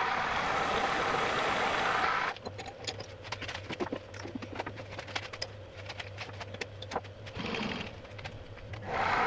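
Metalworking machine tool running: a loud steady machining noise that drops suddenly about two seconds in to a low motor hum with many small scattered clicks and ticks, then swells loud again near the end.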